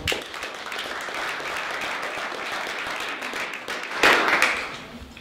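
Audience applauding, with a louder patch of claps about four seconds in, then the applause dies away near the end.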